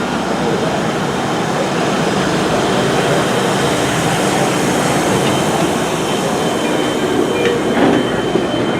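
Steady running noise of a passenger train heard from inside a railroad coach: a dense rumble and rattle of the car on the rails, with a thin high tone from the wheels joining about halfway through.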